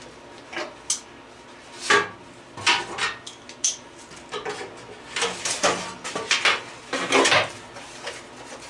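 Irregular metallic clanks and clatters of sheet-metal and aluminum stove parts being handled and knocked about, in small clusters of sharp hits with a brief ring.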